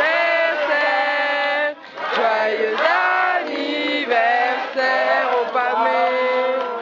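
A man's voice singing or chanting a melody in long held notes that bend in pitch, broken by a short pause about two seconds in.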